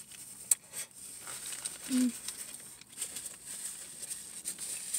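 Eating sounds from a bite of a wrapped flatbread sandwich: wet chewing with sharp mouth clicks and soft crinkling of the paper wrapper. A brief low hum from the eater about two seconds in.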